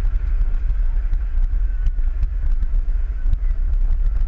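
Roller coaster train running on its track, recorded from on board: a steady low rumble with scattered faint clicks.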